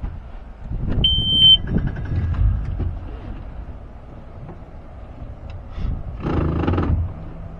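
A short, high electronic beep about a second in, like an outboard's key-on warning horn. Near the end the small boat's outboard motor starts and settles into a steady idle.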